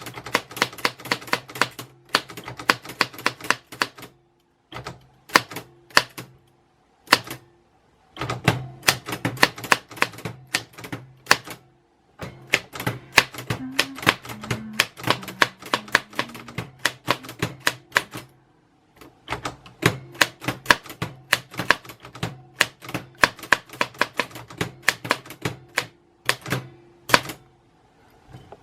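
Typewriter keys striking in rapid runs of sharp clacks, broken by several short pauses. The typing stops shortly before the end.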